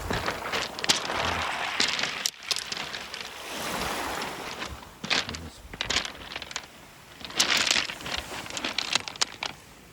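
Small waves washing over a pebble beach. The surge swells and draws back several times, and the wet pebbles clatter and crackle with many short clicks.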